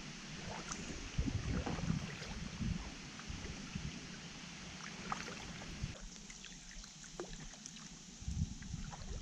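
Paddle strokes and water trickling and dripping beside an inflatable packraft, with scattered small drips and splashes over a steady hiss and an uneven low rumble.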